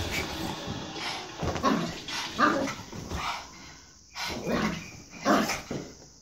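Small dogs, a pug and a small brown dog, play-fighting, with a few short barks.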